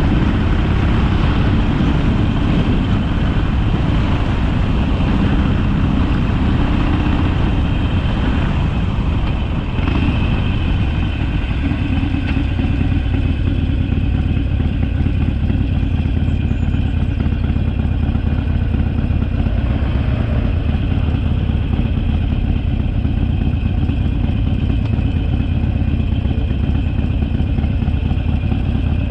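Harley-Davidson Sportster V-twin engine running on the road, a steady low rumble that dips briefly about a third of the way through before carrying on evenly.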